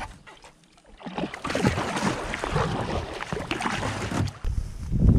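Reed and grass stalks scraping and rustling along a kayak's hull and deck as the bow pushes into a reed bank, a dense crackle starting about a second in. Near the end it cuts abruptly to a low rumble.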